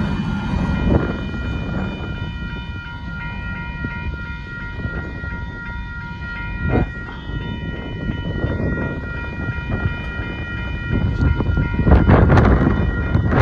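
Railroad crossing bells ringing steadily while the tail end of a freight train of grain hoppers rumbles past and fades away. A louder rush of noise rises near the end.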